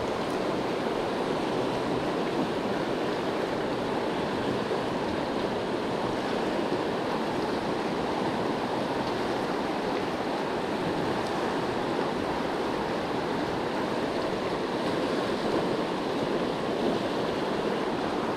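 A high, fast-flowing river rushing steadily past the bank.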